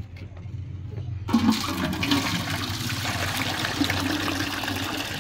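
Water poured from a tilted bowl of sliced vegetables into an empty galvanized metal bucket. It starts suddenly about a second in and then runs steadily as an even splashing stream.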